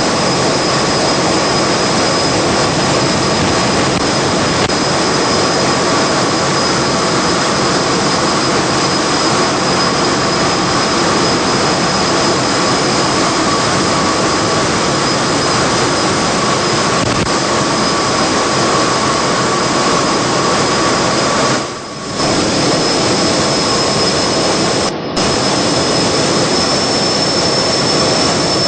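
Steam-driven turbo blowers running in a steel mill's blower house: a loud, steady roar with a constant high whine over it. Two brief dips in level come about 22 and 25 seconds in.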